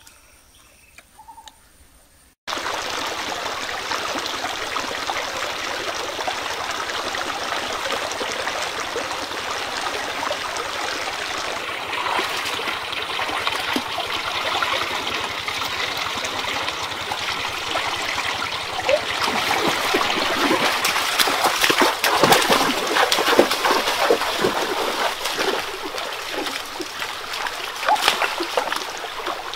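A shallow stream running over rocks, with wading and then hand splashing in the water that grows louder and busier in the last third. The first couple of seconds are quiet before the water sound cuts in.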